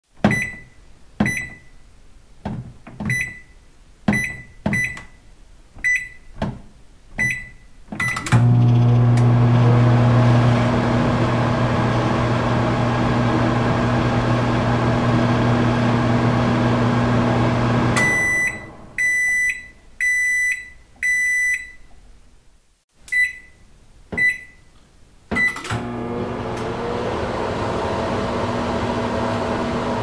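Microwave oven being set and run. About nine key presses each give a short beep, then a click starts a steady electric hum for about ten seconds. The hum stops and four longer beeps sound about a second apart, the end-of-cycle alert. Three more key beeps follow, and it clicks on and hums again near the end.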